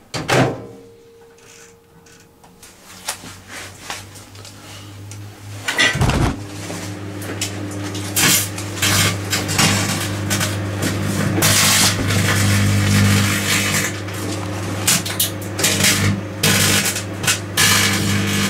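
Microwave oven running with a steady low electrical hum while aluminium foil tape inside arcs, giving irregular crackling and snapping sparks that come thick and fast from about eight seconds in. One loud thud is heard about six seconds in.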